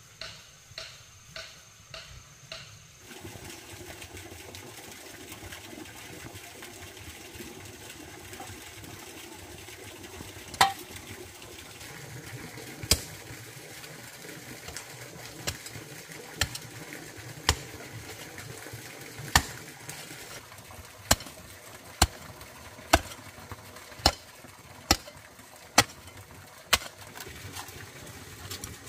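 A series of sharp knocks, scattered at first and then coming about once a second through the second half, over a steady rushing noise.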